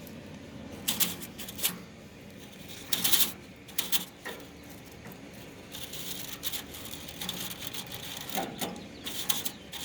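HVAC coil brush scrubbing caked dust off an air conditioner's condenser coil fins, in short scratchy strokes at irregular intervals.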